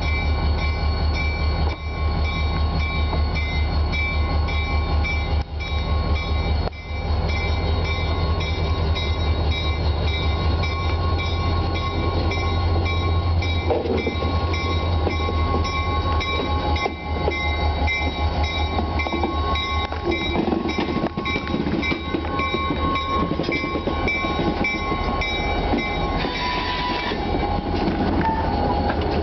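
Diesel road locomotive of the Guilford Rail System (MEC 319) running as it pulls a freight train slowly past, a heavy pulsing engine rumble with steady high-pitched tones running through it.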